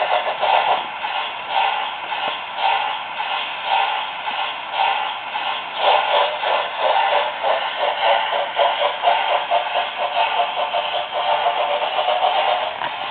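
Märklin BR 10 model steam locomotive's sound decoder playing rhythmic steam chuffing through its small onboard speaker, thin and without bass, as the model runs with its wagons clattering on the track.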